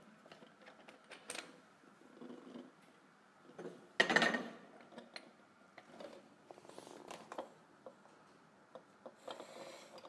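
Handling noise as a small light stand and light are set low and adjusted, with scattered clicks, knocks and shuffling and one louder rustling thump about four seconds in.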